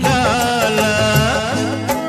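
Hindi film song: a singer's voice wavers through a held note in the first second over orchestral accompaniment, then steady held instrumental chords with a bass line carry on.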